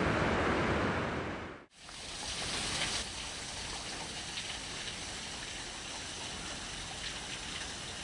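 Steady rushing outdoor noise. A louder, fuller haze fades out under two seconds in and gives way to a quieter, even hiss.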